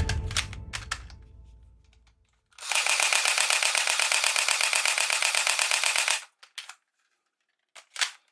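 Toy gun firing in rapid automatic mode, a fast, even rattle lasting about three and a half seconds, with a few mechanical clicks before and after it.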